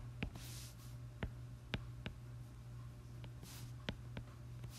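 A stylus writing on a tablet's glass screen: a handful of light tapping clicks and soft scratching as words are written by hand, over a steady low hum.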